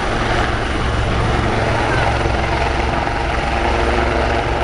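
Royal Navy AgustaWestland AW159 Wildcat helicopter hovering low, with a steady, loud rotor and engine roar and a low droning hum from the rotor blades.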